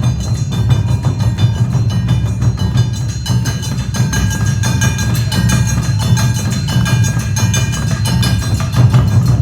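Awa Odori festival band playing: taiko drums beat a steady, driving rhythm while a hand-held kane gong and other percussion strike sharply and ring above them.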